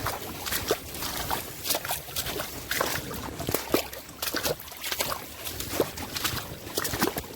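Feet moving in a shallow stream: irregular small splashes and sloshes over the trickle of running water.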